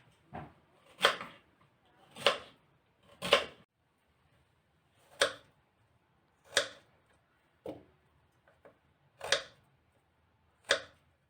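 Nine short, sharp knocks from kitchen hand work, spaced about a second apart, the gaps between them quiet.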